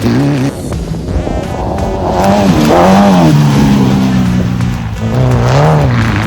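Off-road race car engine revving up and down as it accelerates and lifts. The note climbs to its loudest about three seconds in, drops away, then climbs again near the end.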